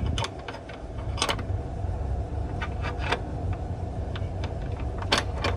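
Wrench on a pinsetter bolt: a few sharp metal clicks and clinks, over a steady low machinery hum.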